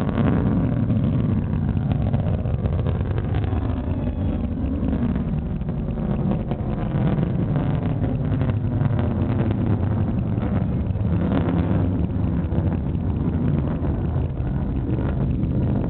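Distant Delta II rocket ascending, its engine noise arriving as a steady low rumble.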